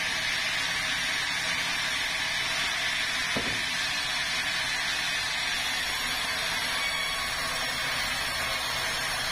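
Vertical band sawmill running steadily, a continuous hissing whir of the motor and band blade. One light knock comes about three and a half seconds in.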